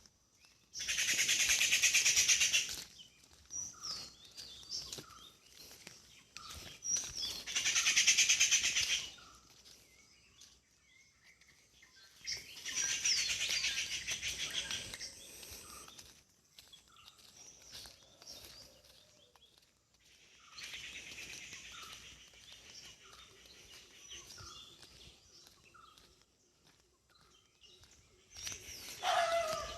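Birds calling in a village: four long bursts of rapid, high chattering, each two to three seconds long, with short repeated chirps and a few falling whistles in between.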